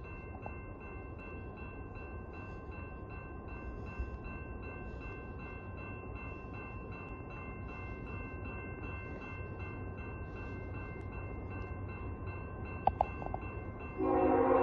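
Grade-crossing warning bell ringing steadily over the low rumble of an approaching freight train, which grows slowly louder. Near the end, the horn of the leading CN ET44AC locomotive starts to sound, much louder than the bell.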